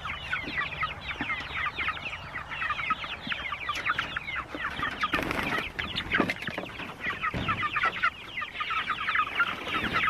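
A flock of young chickens peeping constantly in short, falling chirps. About five seconds in, there is a rustling scrape with a couple of knocks as the wooden chicken tractor is dragged over the grass.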